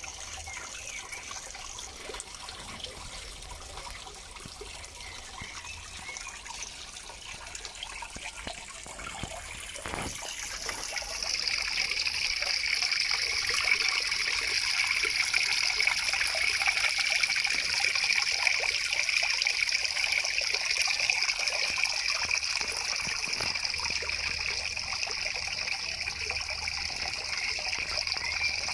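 Small garden waterfall trickling steadily into a goldfish pond, growing louder about ten seconds in.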